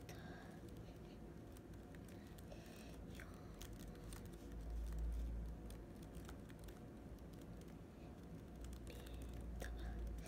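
Fingers typing on a MacBook Air laptop keyboard: a run of faint, quick key clicks. A low rumble swells up twice, about halfway through and near the end.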